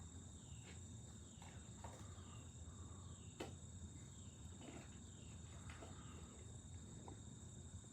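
Near silence with a faint, steady, high-pitched insect chorus like crickets, and a few faint scattered ticks.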